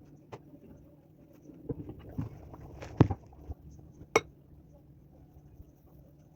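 Objects being handled in a small room: scattered light clicks and knocks, with two sharper clinks about three and four seconds in.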